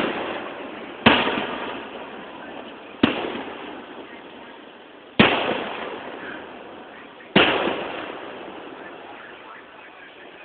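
Fireworks shells bursting: four loud bangs about two seconds apart, each trailing off slowly.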